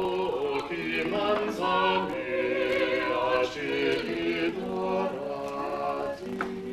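Choral music: voices singing held notes that step slowly from one pitch to the next.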